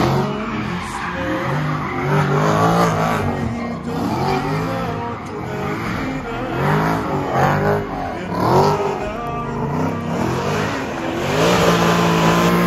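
Mercedes-AMG C63 drifting: the engine's revs rise and fall over and over, about once a second, over continuous tyre squeal.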